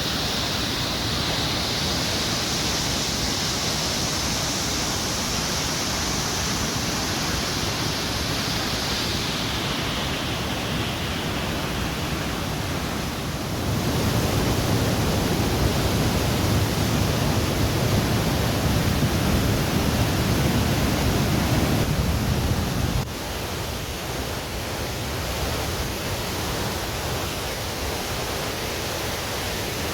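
Steady rushing roar of the Reichenbach Falls waterfall. About halfway through, a deeper, louder rumble joins in for around nine seconds, then cuts off abruptly.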